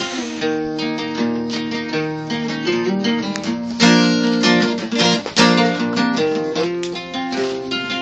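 Two acoustic guitars playing an instrumental tune together: a steady stream of plucked notes over held chords.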